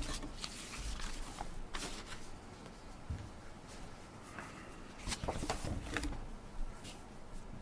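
Quiet rustling and scattered light clicks at a lectern during a speaker changeover: papers being handled and footsteps.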